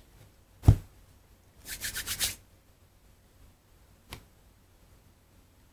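A deck of Spanish playing cards being handled on a cloth-covered table: one sharp knock of the deck under a second in, then a quick rattle of six or seven card clicks as the cards are shuffled, and a soft tap about four seconds in.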